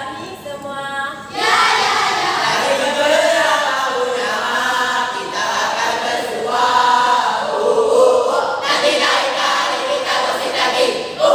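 A school choral speaking group voicing a Malay bicara berirama piece in unison, the lines chanted and sung on held, gliding notes. There is a brief lull about a second in, then the voices come back loud.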